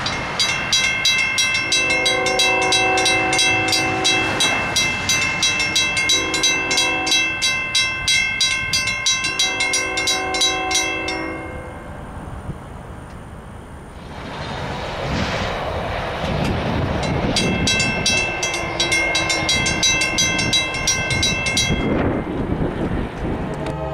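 Mechanical railroad crossing bell ringing in rapid, even strokes while a train horn sounds three long blasts over it. The bell stops about eleven seconds in, when the gate arms are down. A rushing noise follows, and the bell rings again for a few seconds near the end.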